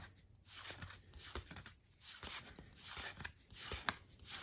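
A stack of cardboard trading cards being thumbed through by hand: soft swishes and light clicks, about two a second, as each card is slid off the front of the stack and tucked behind the rest.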